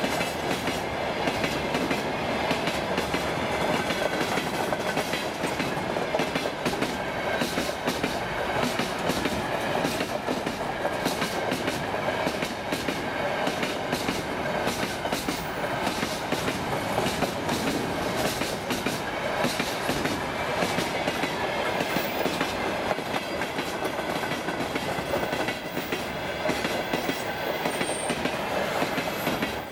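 Freight train of open-top gondola wagons rolling past close by: a steady rolling noise of steel wheels on rail, with frequent short clicks from the wheelsets.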